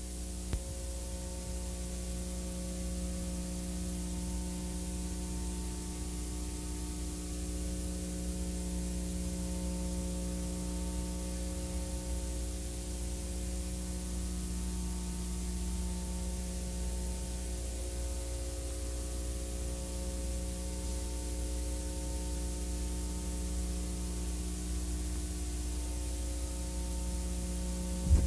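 Steady electrical hum with static hiss and no other sound: the background noise of the broadcast audio feed with the commentary silent.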